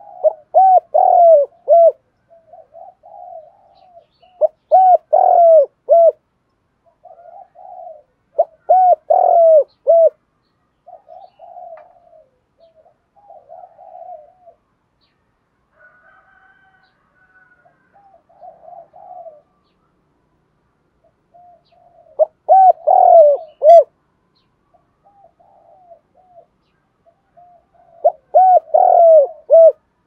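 Spotted dove cooing close by: five loud phrases, each a run of several dipping coo notes, a few seconds apart, with a longer gap in the middle. Fainter coos sound between the loud phrases.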